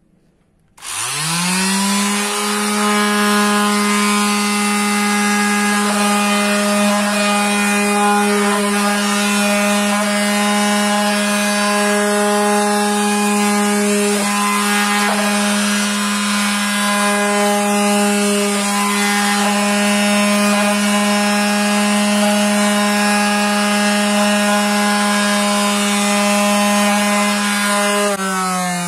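Hammer LD735A 135-watt orbital sander switched on about a second in, its motor rising quickly to a steady, loud hum. It runs free on a table top, shaking and hopping about the surface. Near the end it winds down, the hum falling in pitch.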